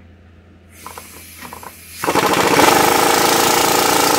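A few light clicks of tools, then about two seconds in a pneumatic impact wrench starts hammering loudly and rapidly on a front shock mounting bolt of the truck. Right after this run the crew say it sounded like the nut or bolt broke, and the bolt did snap off.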